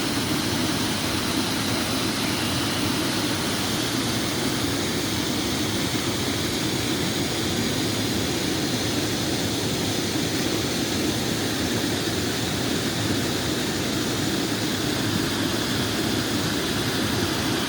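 Water rushing steadily over a creek's falls and dam: an even, unbroken roar.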